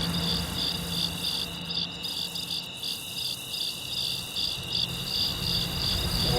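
Crickets chirping in steady, evenly pulsing trills over a low hum, in the manner of a stock cricket sound effect.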